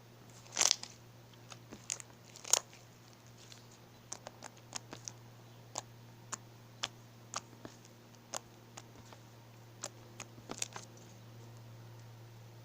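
Slime being pressed and squished by hand, making a string of small sharp pops and clicks at irregular intervals, the loudest few in the first three seconds.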